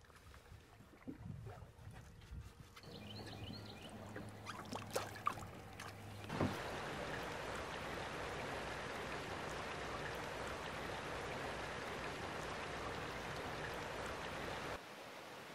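Steady rush of flowing river water, which starts suddenly about six seconds in and drops off near the end. Before it come quiet handling sounds and a low hum.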